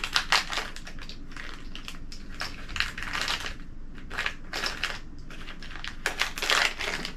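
A small clear plastic jewellery bag crinkling and rustling in irregular bursts as it is handled and rings are put back into it.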